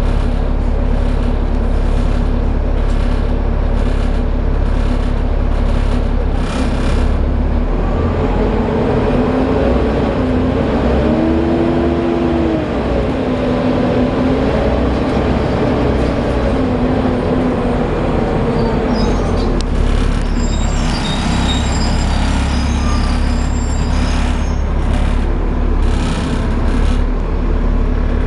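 Volvo B7TL double-decker bus running with a steady low engine rumble. In the middle a whine rises and falls in pitch as the bus pulls away and slows, the hoover-like whine these buses are known for. Clicks and rattles are heard near the start and again near the end.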